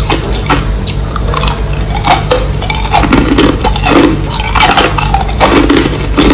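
Crushed ice being chewed close to the microphone: a dense run of crisp crunches and cracks, with heavier chomps from about three seconds in, over a steady low hum.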